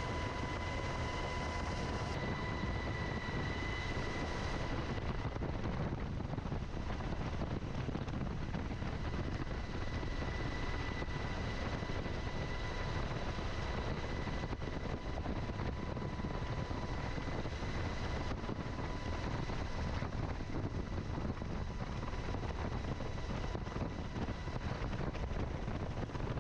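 UH-60 Black Hawk helicopter running: a steady, continuous rush of rotor and engine noise with a high whine on top, strongest in the first few seconds.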